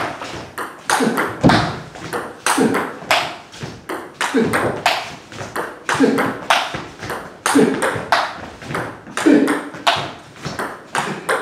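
Table tennis rally: the celluloid/plastic ball clicking off the table and the bats in a steady back-and-forth, several clicks a second. One side chops with long-pips rubber (SPINLORD Blitzschlag on 0.8 mm sponge, Sword 309 blade) against slow topspin from the other.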